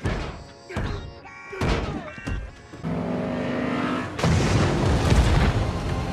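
Action film soundtrack: several short sharp hits, then orchestral score with held chords from about three seconds in. A heavy boom comes in just after four seconds and carries on under the music as armoured trucks are thrown into the air on the ice.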